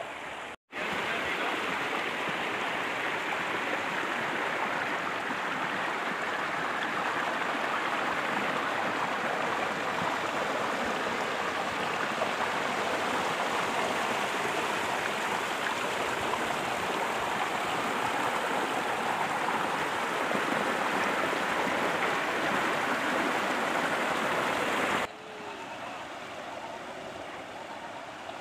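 Floodwater rushing through the slats of a broken bamboo footbridge, close up: a steady, even rushing. About 25 seconds in it cuts suddenly to a quieter, more distant flow of water.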